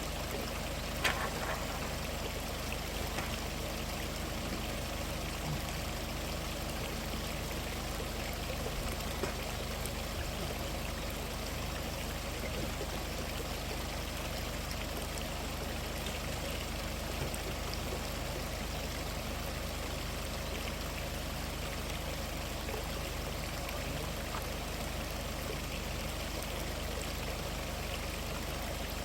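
Mountain stream flowing steadily, with a short knock about a second in.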